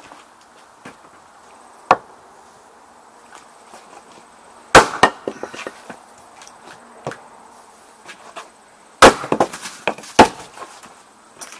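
Hults Bruk axe splitting firewood on a chopping block: several sharp chops, the loudest about five and nine seconds in, each followed by a quick run of lighter knocks as the split pieces fall.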